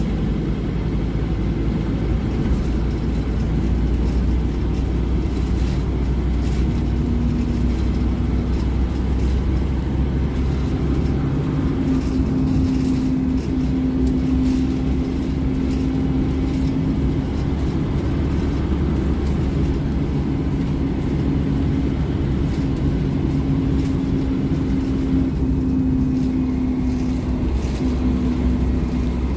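Scania OmniLink single-deck bus heard from inside the saloon on the move: steady engine drone and road rumble, with the engine note growing stronger and holding partway through. Light rattles and clicks come from the interior fittings.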